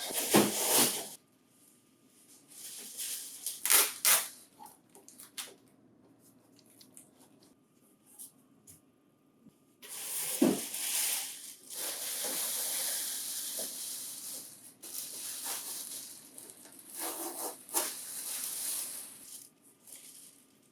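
Rustling and scraping of cardboard and plastic packing material being handled, in irregular stretches, with a single knock about ten seconds in.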